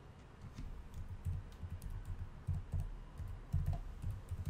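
Computer keyboard typing: an irregular run of key clicks, each with a low thud, starting about half a second in as an IP address is typed.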